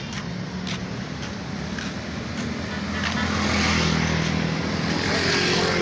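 Road traffic passing on the bridge: a motor vehicle's engine hum and tyre noise grow louder about halfway through as it comes close by.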